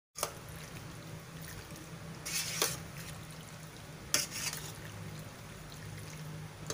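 Metal spoon stirring saucy cooked penne in a stainless steel pot, with short scrapes against the pot about two seconds in and again about four seconds in, over a low steady hum.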